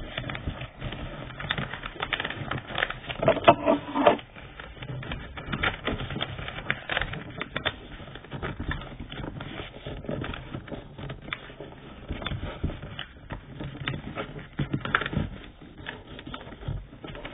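Sheet of paper rustling and crackling as a paper airplane is folded and its creases pressed down, with irregular clicks and taps throughout.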